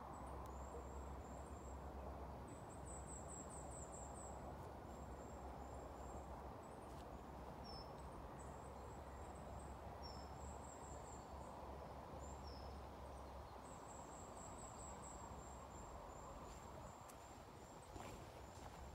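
Faint bird song: repeated phrases of short, very high-pitched notes and quick trills, with a few short falling notes now and then, over a steady low background rumble.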